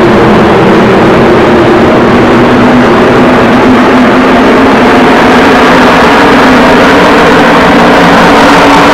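A field of stock-car V8 engines running around the oval, a loud, steady drone of many engines together. The pitch shifts slightly about five seconds in as the pack moves around the track.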